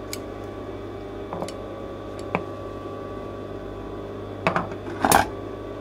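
Thread snips clicking as threads are trimmed off a freshly sewn lining hem: several short, sharp snips with fabric rustle, the loudest cluster near the end. Under it runs the steady hum of the industrial sewing machine's motor.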